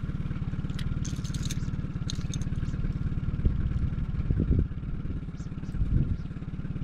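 Boat's outboard motor running steadily at idle, a low even pulsing, with a few light clicks and clatter about a second in.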